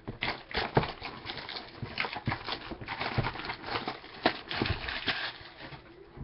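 Irregular taps, knocks and rustles of a cardboard trading-card box being handled and opened.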